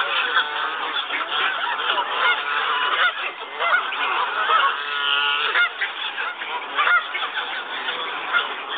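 A group of Canada geese honking, many calls overlapping one another without a break.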